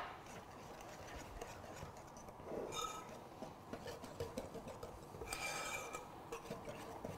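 A wire whisk stirring a thick, gritty semolina batter in a ceramic mixing bowl, making a faint steady scraping rasp. Twice, about three seconds in and again after five seconds, there is a brief ringing scrape.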